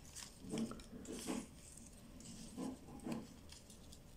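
Faint, scattered rustling of oak leaves and small clicks of bonsai wire as hands bend and position wired branches of a young red oak.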